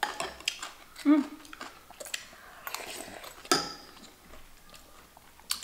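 Table-side eating sounds: metal spoons tapping and scraping against glass and ceramic bowls in short clicks, with chewing. A brief murmur of voice comes about a second in.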